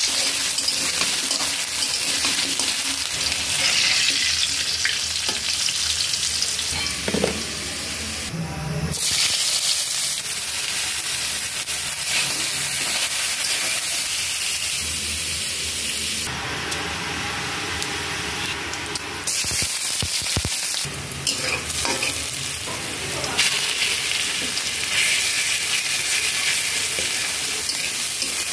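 Vegetables sizzling as they fry in hot oil in a metal wok: potato pieces, then eggplant chunks, then chopped onion and green chillies, stirred with a metal spatula that scrapes and clicks against the pan. The sizzle shifts abruptly in level and tone several times.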